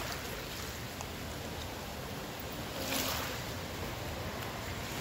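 Steady rushing outdoor background noise, with a brief louder hiss about three seconds in.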